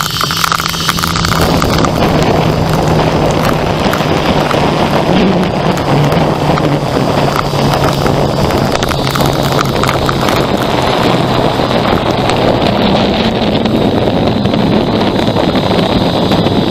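Zipline trolley pulleys running along the steel cable, a steady whirring hum whose pitch slowly drops, mixed with wind rushing over the microphone as the rider travels down the line.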